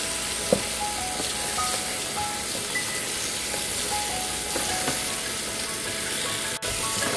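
Kitchen tap running steadily into a plastic container of salad greens in a stainless steel sink, the water splashing over the leaves as they are rinsed and tossed by hand.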